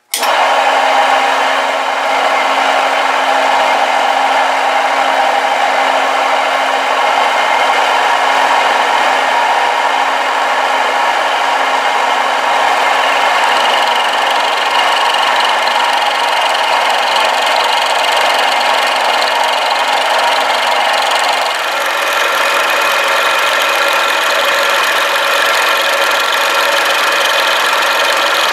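Vertical milling machine running, its end mill cutting metal from a bandsaw blade guide block: a steady machining whine with cutting noise. The sound changes about two-thirds of the way through.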